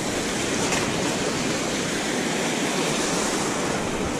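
Ocean surf breaking and washing up the beach: a steady rushing noise that swells a little after the start.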